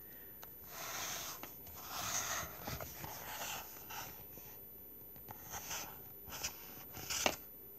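Pages of a hardcover comic book being turned and handled: several short papery rustles with a few small clicks.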